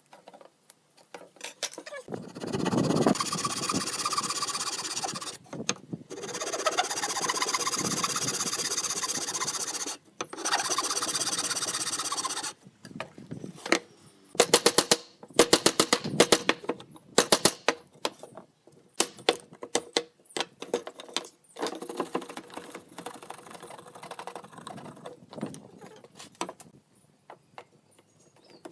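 A woodworking power tool runs in three bursts of a few seconds each, then a long run of sharp knocks and taps, some in quick clusters.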